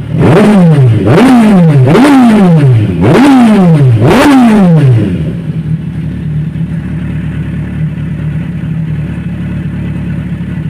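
Kawasaki Ninja 1000SX inline-four engine with its stock exhaust canister removed, revved in five quick throttle blips, each one dropping back at once. About five seconds in it settles to a steady idle.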